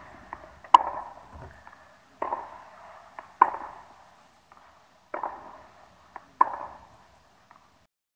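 Tennis racket striking the ball on two-handed backhand topspin shots: three sharp hits about three seconds apart, the last the loudest, with softer knocks between them.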